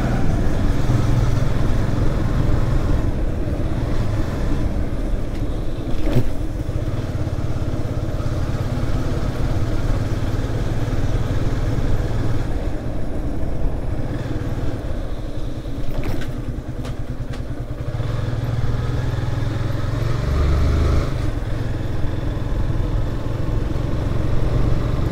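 Motorcycle engine running while riding on a road, with steady road noise. The engine note drops back in the middle and picks up again later on, with a couple of brief knocks along the way.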